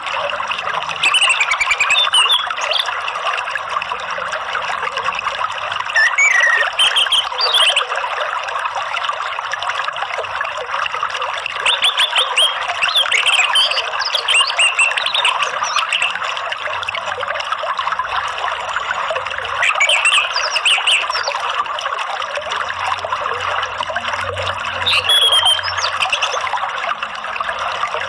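Steady sound of running, trickling water with five short bursts of bird song: quick chirps and gliding whistles, about every six seconds. It is a songbird-keeping therapy recording of water and birdsong, made to stimulate a caged orange-headed thrush to sing.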